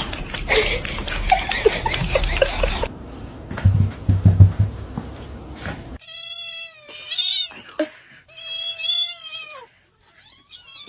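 Domestic cat giving three long, drawn-out meows, starting about six seconds in. Before that, a noisy stretch with knocks and low thumps.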